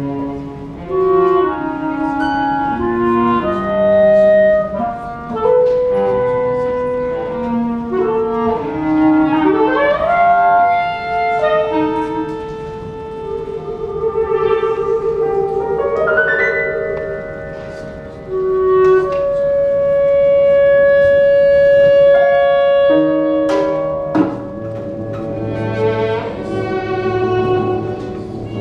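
Live chamber quartet of clarinet, violin, cello and piano playing contemporary classical music. Short held notes step from one to the next, rising glides come about ten and sixteen seconds in, and a long high note is held from about nineteen seconds. A low sustained note joins about 24 seconds in.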